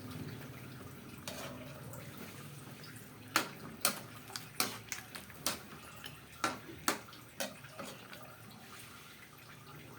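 Cooking utensil stirring a pan of simmering chicken stew in tomato sauce, knocking against the pan in a run of sharp clinks about half a second apart through the middle few seconds, over the faint bubbling of the sauce.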